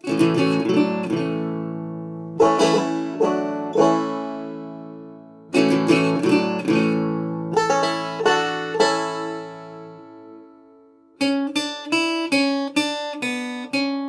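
Acoustic guitar music: groups of plucked chords that ring out and fade, a short pause, then a run of quicker picked notes near the end.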